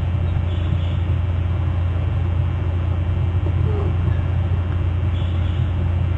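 Steady low rumble with a haze of noise from the eagle-nest camera's outdoor microphone feed, with two faint high chirps, about half a second in and again near the end.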